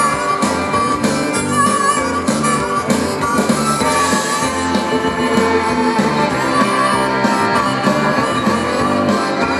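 Live rock band playing, led by a harmonica solo cupped against a vocal microphone over acoustic guitar, fiddle and drums.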